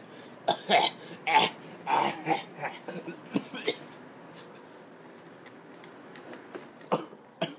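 Short, wordless vocal noises from a person, a string of brief sounds in the first three seconds or so, then quiet room sound with a couple of clicks near the end.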